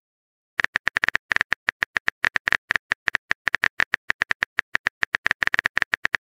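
Phone keyboard typing sound effect: a rapid run of short, identical clicks, about eight or nine a second, as a text message is typed letter by letter.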